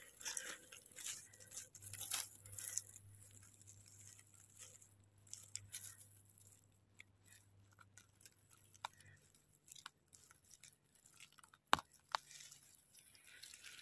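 Dry fallen leaves rustling and crackling as a hand pushes through the leaf litter and takes hold of a mushroom, busiest in the first few seconds, with scattered small snaps and one sharp click near the end.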